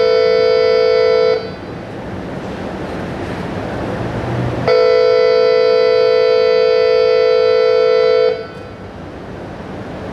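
A loud, steady horn-like tone held at one pitch sounds twice. It cuts off about a second in, a rushing noise swells up, and then the tone cuts back in about halfway through and stops sharply near the end, leaving the rushing noise.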